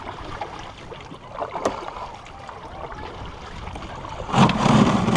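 Paddle strokes splashing and dripping in lake water beside a canoe, with a couple of short knocks about a second and a half in and a louder rush of sound near the end.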